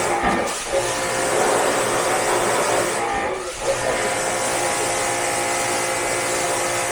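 A motor running steadily under a loud hiss, with a low hum and a few steady tones, dropping out briefly twice: just after the start and around three seconds in.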